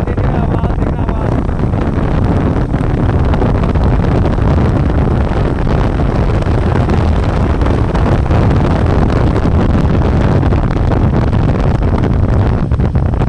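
Royal Enfield single-cylinder motorcycle engine running steadily while riding, with heavy wind noise on the microphone.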